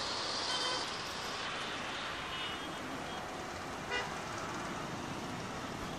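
Steady hum of distant street traffic, with faint short car-horn toots about half a second and two seconds in, and a brief sharp sound about four seconds in.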